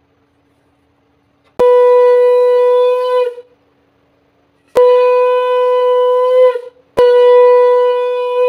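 Conch shell (shankha) blown three times, each a loud, steady, horn-like note lasting about two seconds, blown to mark the evening prayer (sandhya).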